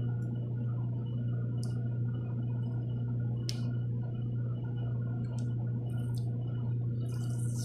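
Electric heat gun running with a steady hum while it heats a sticker on a bare BMX frame, with a few faint short clicks.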